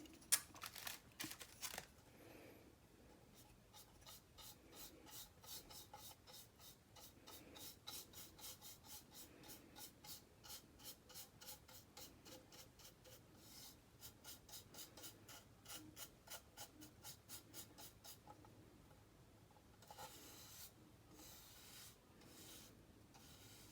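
Faint rapid scratchy rubbing of paint being worked onto a plastic airsoft magazine, about three to four strokes a second, with a few handling clicks at the start.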